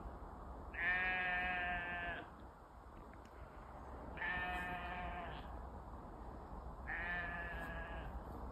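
Sheep bleating three times, each call about a second long, a few seconds apart.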